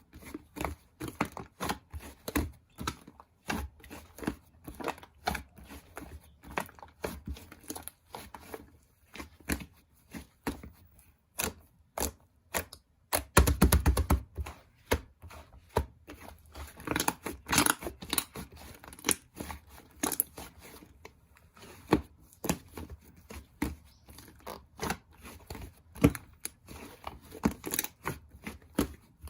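Slime being squeezed, stretched and poked by hand, making a string of small clicks and pops, with a denser run of crackling about halfway through.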